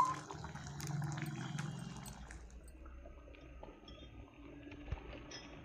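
Thick dal being poured from a ladle into a glass bowl: soft wet pouring and plopping, with a single low thump near the end.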